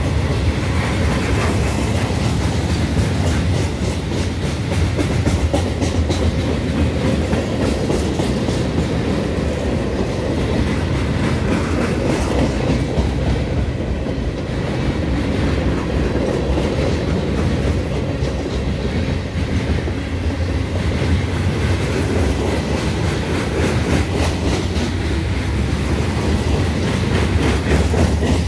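Freight train's boxcars and covered hopper cars rolling slowly past on the track, their steel wheels clicking over the rail joints in a steady clatter over a low rumble.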